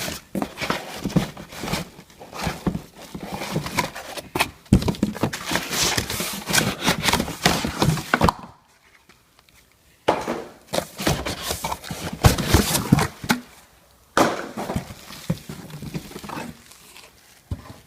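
Cardboard box and packaging rustling, crinkling and knocking as vacuum parts are handled and unpacked, in irregular bursts with a pause about halfway through and another shorter one later.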